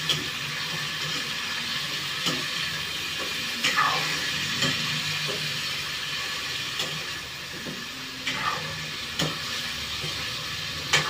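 Chicken feet and necks sizzling in hot oil in a small pan as they are sautéed. A spatula stirs them, with a scrape or clink against the pan every second or two.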